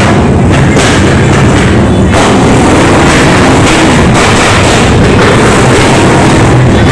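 Modified Honda CRF250 dirt bike's single-cylinder engine running very loudly, mixed with loud music that has a steady beat.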